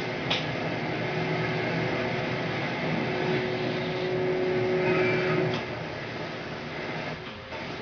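Mazak FH480 horizontal CNC machining centre running: a steady mechanical hum with a held tone that cuts off about five and a half seconds in, when the sound drops a little, and a click shortly after the start.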